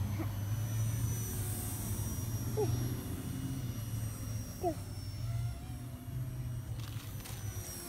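High, thin, steady whine of a small electric radio-controlled model aircraft's motor in flight, drifting slightly lower in pitch, over a low rumble of wind on the microphone, with faint distant voices.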